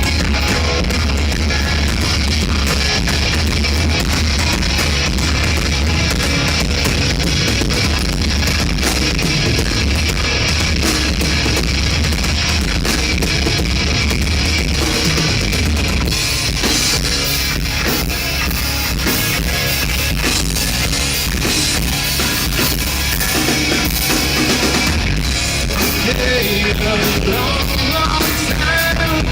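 Rock band playing a mostly instrumental passage: electric guitar over bass and drum kit, steady and loud throughout.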